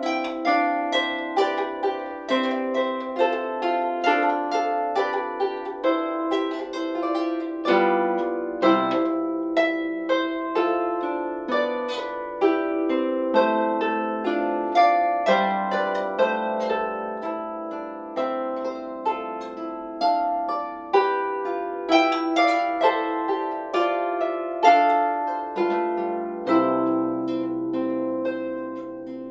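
Solo harp played by hand: a steady stream of plucked notes and chords, each ringing out briefly. Deeper bass notes join in near the end.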